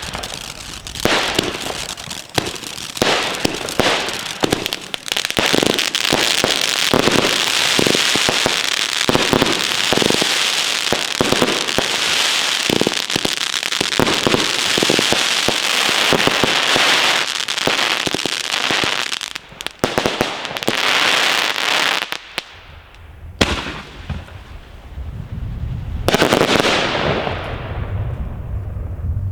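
Bavaria Special Thunder 3-inch F4 fireworks battery firing: a dense run of rapid bangs over continuous crackling, thinning out after about 19 seconds. Near the end come two single loud bursts, each trailing off in crackle, over a low rumble.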